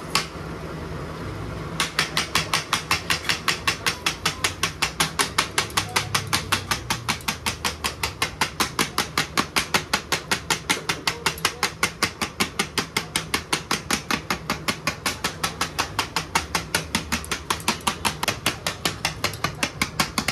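Fast, steady chopping strikes, about five a second, beginning about two seconds in, over a low steady hum.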